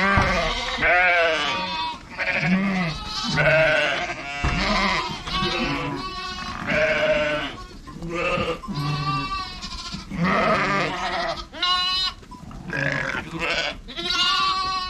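A flock of sheep bleating, one call after another with several voices overlapping; many calls quaver.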